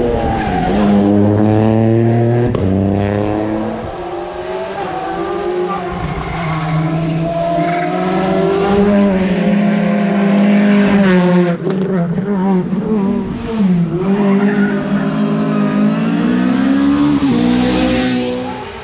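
Rally car engines revving hard at high rpm, the pitch climbing and then dropping again and again as the cars shift gear and lift off.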